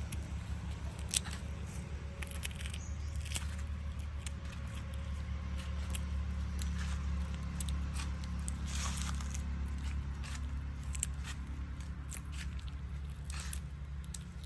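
Shell of a cooked egg being cracked and peeled off by fingers: a scattered run of small crackles and clicks over a steady low rumble.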